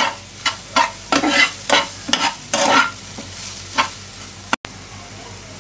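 A metal spatula scraping and stirring thick onion-tomato masala in a frying pan, about three strokes a second, over the sizzle of frying. The strokes stop about four seconds in, leaving the soft sizzle.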